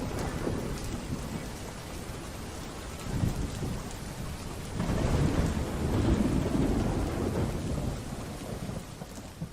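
Steady rain with rolling thunder, the rumble swelling twice and then fading away near the end.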